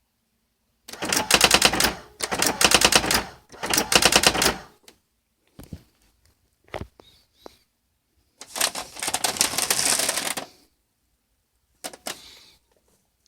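Brother GX6750 electronic daisywheel typewriter printing: three rapid runs of strikes, then a few single clicks, then a longer, smoother run of about two seconds and a short burst near the end.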